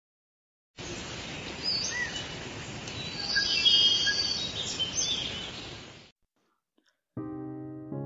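Forest ambience: birds chirping and whistling over a steady rushing hiss, which fades out after about six seconds. After a short gap, background music with sustained chords starts near the end.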